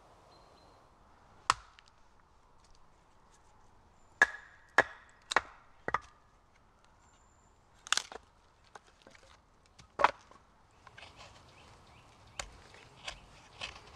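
Knife being batoned through a small log to split it: about seven sharp wooden knocks, irregularly spaced, four of them in quick succession. From about eleven seconds in, lighter scraping strokes of a knife shaving a split piece of wood.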